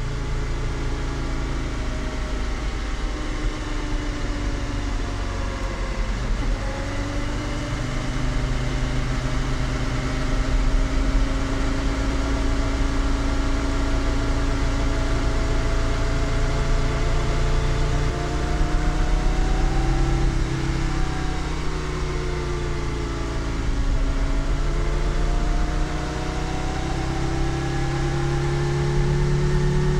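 The Jiotto Caspita's F1-derived Judd V10 engine, fitted with a muffler, running at speed on the road. Its pitch climbs slowly, dips about six seconds in and again around twenty seconds in, then climbs again.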